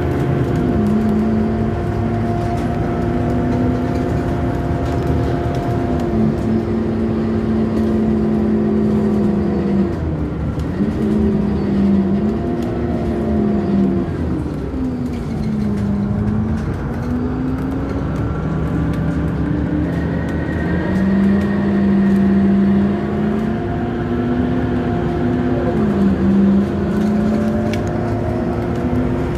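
Scania K230UB bus heard from inside the cabin while under way: the engine and ZF automatic gearbox run steadily, the pitch stepping down at gear changes and sinking then climbing again as the bus slows and pulls away.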